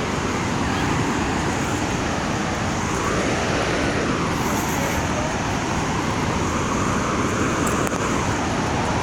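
Floodwater rushing, a steady loud noise with no breaks.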